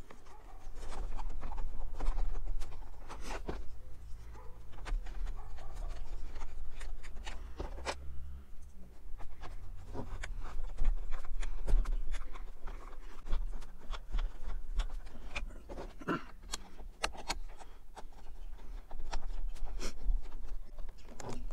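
Small clicks, taps and scraping as T20 Torx screws are driven back into a plastic door switch panel and the panel is handled, over a steady low rumble.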